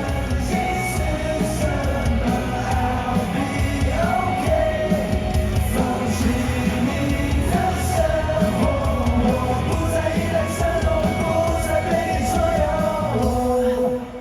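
Live rock-pop band music over a stadium PA with a sung melody, cutting off suddenly near the end as the song finishes.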